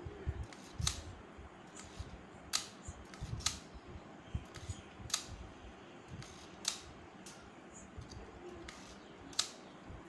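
Irregular sharp plastic clicks and knocks, about a dozen of them, as a washing machine timer and its knob are handled and pulled apart.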